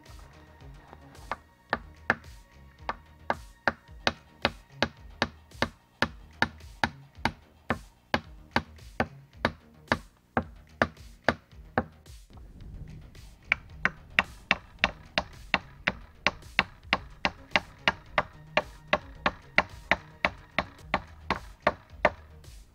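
Quick repeated chopping strikes of a blade, about two to three a second, stopping for a couple of seconds about halfway and then going on, over background music.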